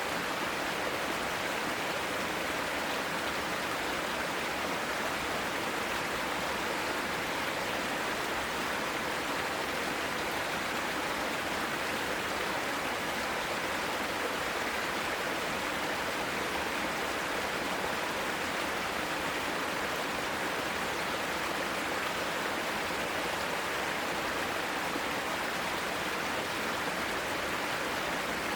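Mountain stream rushing steadily over rocks, an even, unbroken water noise.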